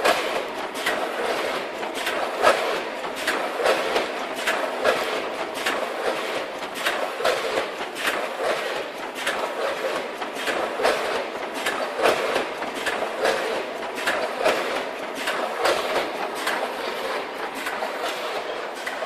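A multihead combination weigher and vertical bagging machine running at about 48 bags a minute: a steady mechanical clatter with rapid, irregular clicks and clacks several times a second.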